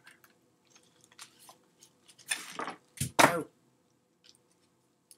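Handling noise from a stiff paper recipe card moved about close to the microphone: a few light clicks and taps, then two louder rustling scrapes about two and three seconds in.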